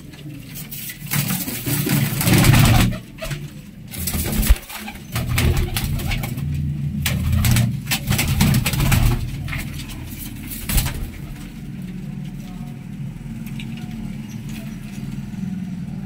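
Domestic pigeons cooing in a small loft, repeated low coos throughout. Several loud rustling bursts fall mostly in the first two-thirds.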